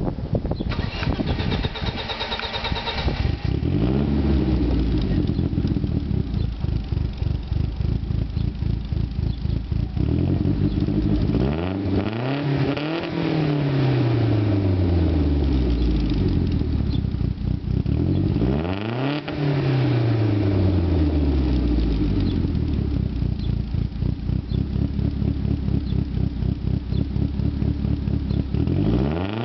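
Turbocharged BMW M42 four-cylinder engine in an E30 318is, heard at its 3-inch Magnaflow exhaust with high-flow cat, Magnaflow muffler and dual tips. It starts about a second in and idles, then is revved twice, near the middle and again about two-thirds in. Each rev climbs quickly and falls slowly back to idle, and another rev begins at the very end.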